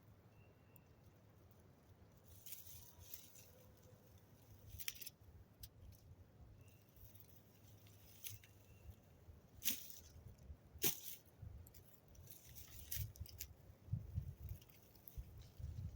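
Quiet outdoor stillness: a low rumble with scattered faint rustles and sharp clicks, two of them louder a little after the middle.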